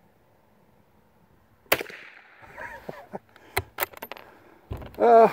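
A single .22 rimfire shot from a Remington 510 single-shot bolt-action rifle about a second and a half in, then a few light metallic clicks as the bolt is worked. Near the end, a man's short loud vocal exclamation.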